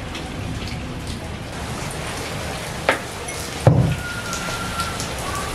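Steady rain falling and splashing on a wet tiled floor. About three seconds in come two sharp knocks, and the second is a louder thump.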